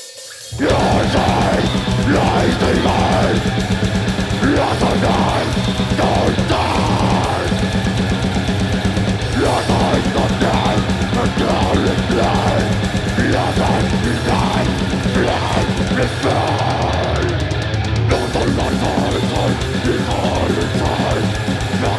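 A death metal band playing live at full volume, starting abruptly about half a second in: heavily distorted electric guitars, bass and very fast drumming on a full kit, with a vocalist's harsh vocals over the top.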